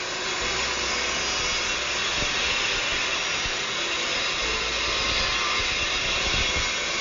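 Power miter saw cutting through a thick block of reclaimed oak beam, the blade running steadily in one long continuous cut.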